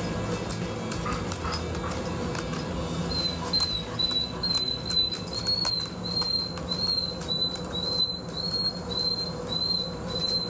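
German Shepherd puppy whining in short, high-pitched cries, about two a second, starting a few seconds in, over a steady low hum.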